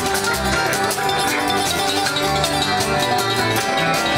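Bluegrass band playing an instrumental passage live: banjo picking over an upright bass line, with no singing.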